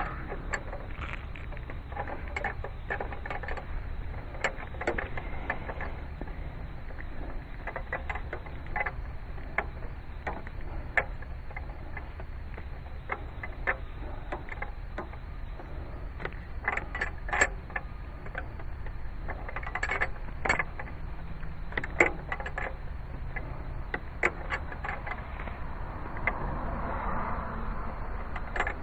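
A wrench working a power steering hose fitting as it is threaded onto the pump: irregular light metallic clicks and taps. A steady low hum runs underneath.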